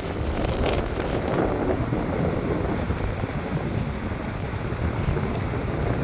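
Wind buffeting the microphone over the wash of Lake Michigan waves breaking on a rocky shore. A wave surges up about half a second in.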